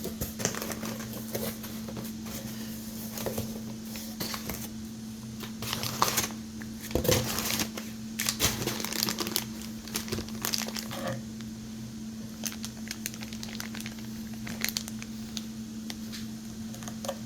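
Packaging crinkling and tearing as a new ratchet is unwrapped by hand: irregular rustles and crackles, busiest in the middle.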